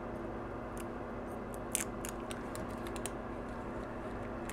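Light, scattered clicks and taps of a gloved hand and a small tool handling a phone flex cable on a work mat, over a steady low hum.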